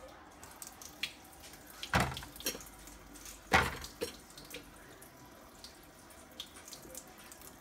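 Kitchen faucet running a thin stream into a stainless-steel sink, with a few sharp clanks and knocks as a dish brush and utensil are banged against the sink and dishes. The two loudest knocks come about 2 and 3.5 seconds in.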